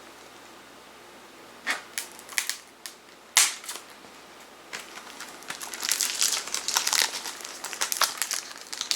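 Plastic shrink-wrap being torn and crumpled off CD jewel cases. A few sharp crackles come first, then a long stretch of dense crinkling.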